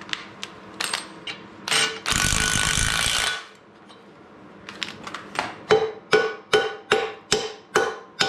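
A hammer striking the iron arbor press to knock a part out, in an even run of ringing metal blows about two and a half a second, starting about five seconds in. Before that come scattered clicks and knocks and a loud burst of rushing noise about two seconds in that lasts about a second.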